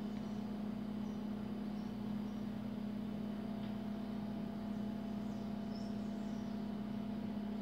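A steady low hum with a light hiss behind it, unchanging throughout, with no distinct event standing out.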